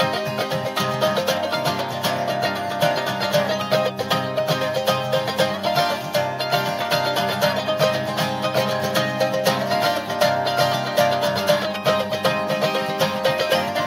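Mandolin and acoustic guitar playing an instrumental passage in a bluegrass style, with fast picked notes over steady strummed chords.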